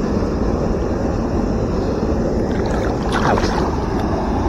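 Steady rush of river current below a low dam, with water sloshing around a channel catfish held by the tail at the surface as it is let go.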